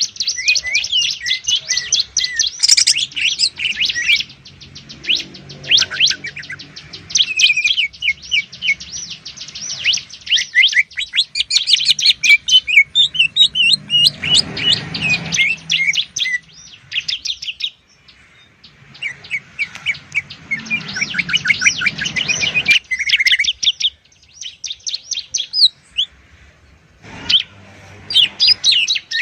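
Greater green leafbird and bar-winged prinia singing in long runs of rapid, high chirping trills, the fast rattling 'ngebren' bursts prized by bird keepers. There are brief pauses about two-thirds of the way through.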